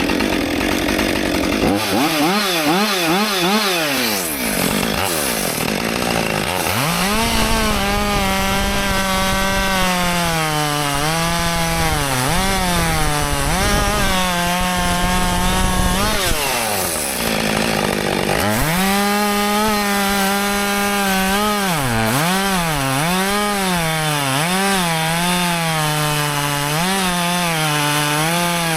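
Husqvarna 564 XP two-stroke chainsaw cutting wood at full throttle, its engine pitch dipping again and again as the chain bites into the log. Twice the revs drop away and come back up to full speed between cuts: a few seconds in, and again just past the middle.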